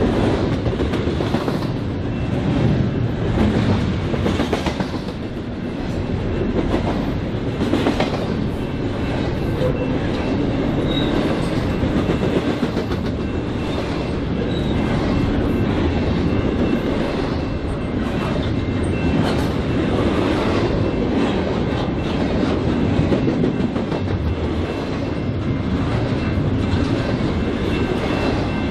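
BNSF freight train rolling past at steady speed, the cars' wheels clacking irregularly over the rail joints amid a continuous low rumble.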